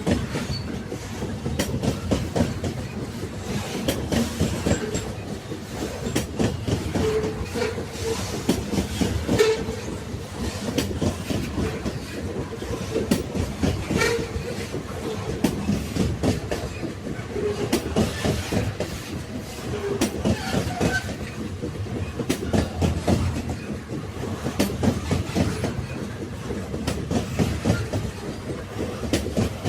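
Railway wagons rolling along the track: a continuous running noise with repeated clickety-clack knocks as the wheels pass over rail joints, and a few brief wheel tones.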